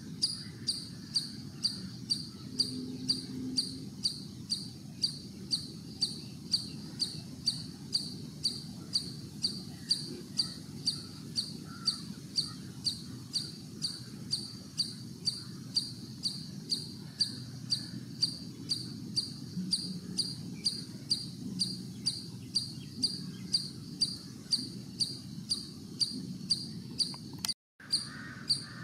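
A cricket chirping steadily in short, evenly spaced chirps, about two a second, over a low background rumble. The sound drops out for a moment near the end.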